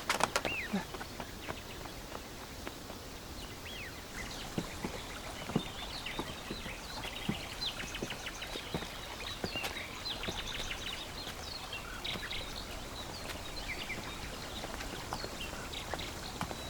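Outdoor ambience with small birds chirping: many short, high chirps scattered through, over a faint steady background. A single sharp knock comes right at the start.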